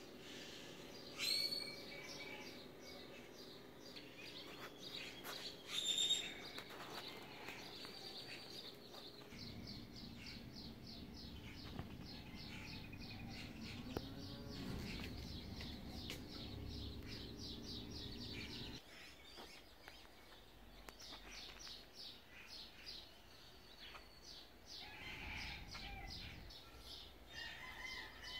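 Birds calling: two loud, sharp calls about a second and six seconds in, then long runs of rapid, repeated high chirps. A low steady hum runs underneath for about ten seconds in the middle and cuts off suddenly.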